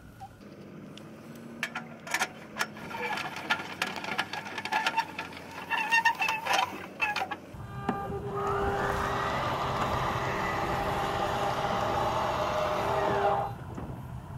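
A scissor stabilizer jack on an RV trailer being cranked by hand: irregular metal clicks and squeaks. About halfway through an electric motor starts, its whine rising briefly and then holding steady for about five seconds before cutting off; it is the trailer's slide-out extending.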